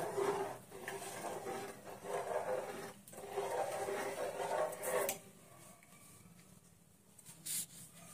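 A steel ladle stirring uncooked rice, chopped vegetables and water in a pressure cooker, in stretches with short breaks, stopping about five seconds in.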